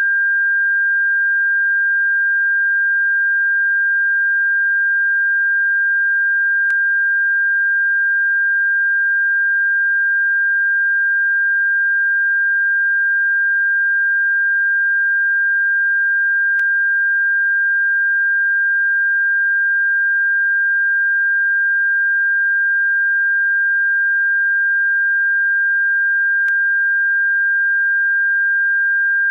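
Steady pure electronic sine tone at about 1.6 kHz, unbroken and unchanging in pitch or loudness, played as a bird-repellent frequency. Three faint clicks are heard, about ten seconds apart.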